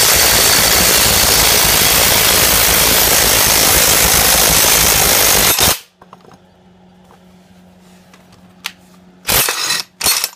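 Impact wrench hammering continuously on the forcing screw of a ball joint press, pushing the fan clutch bearing out of a Jeep 4.0 A/C compressor bracket; it stops suddenly about five and a half seconds in. Two short loud bursts follow near the end.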